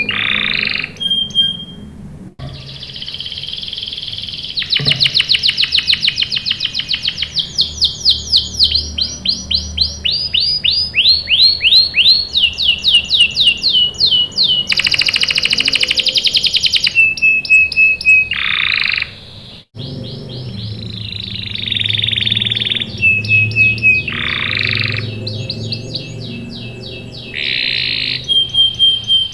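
Domestic canary singing: long runs of fast, repeated chirps and rolling trills, broken by short held whistles and buzzy notes.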